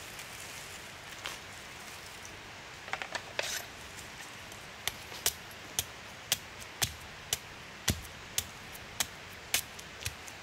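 A run of sharp knocks, about two a second, begins about halfway through over a steady rain-like hiss. A few softer clattering sounds come before them.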